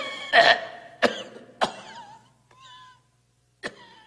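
A man coughing hard after a mock lion roar: a gruff vocal burst at the start, two sharp coughs about one and one and a half seconds in, and another cough near the end.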